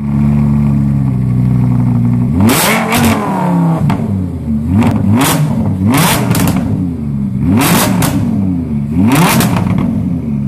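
Lamborghini Huracán's 5.2-litre V10 with a sports exhaust, idling steadily for about two seconds, then revved hard again and again in quick blips, each rising sharply in pitch and falling back.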